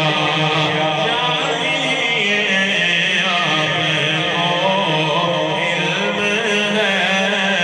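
A man chanting a naat, an Urdu devotional poem in praise of the Prophet, in a continuous melodic recitation with long, wavering held notes.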